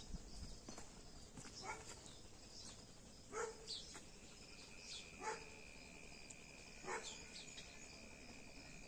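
A dog barking faintly in the distance, four short single barks spaced a second and a half to two seconds apart. A thin steady high tone begins about halfway through.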